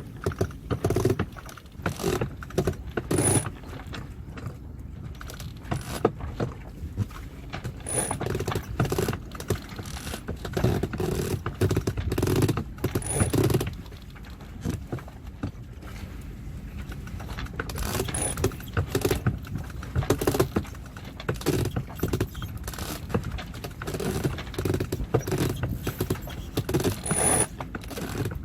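Metal mast and rigging hardware on a sailing catamaran clinking and knocking irregularly, with brief high metallic pings every few seconds, while a climber works his way up the mast on a line and the slack is hauled in below.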